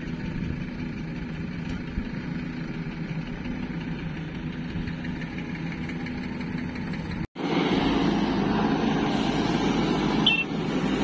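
Diesel engines of a JCB 3DX backhoe loader and a farm tractor running steadily. The sound drops out abruptly about seven seconds in and comes back louder.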